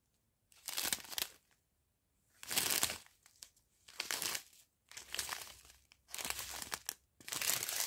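Small clear plastic bags of round diamond-painting drills crinkling as they are handled, in about six short bursts with brief pauses between.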